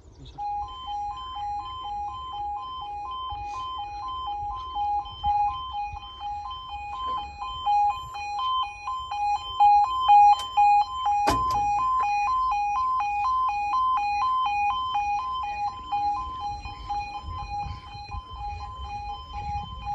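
UK level crossing audible warning sounding as the crossing closes: a two-tone alarm that flips rapidly back and forth between two pitches. About halfway through there is a single sharp knock, and wind rumbles on the microphone.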